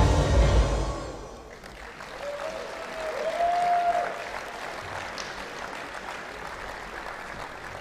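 Backing music with a heavy beat ends about a second in. The audience then applauds in a large sports hall, with one drawn-out call rising out of the crowd partway through, and the applause dies away toward the end.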